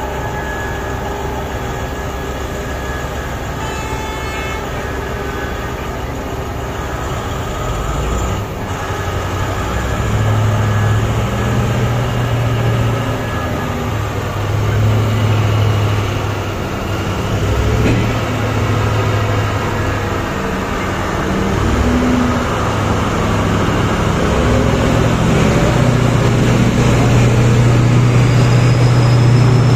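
Heavy diesel engines of a mining excavator and haul truck running, the deep engine note swelling and easing several times as the machines work under load.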